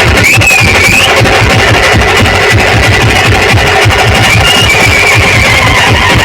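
Loud brass-band music with dhol-tasha drumming: a fast, dense drum beat under a high wavering melody line that swoops twice in the first second.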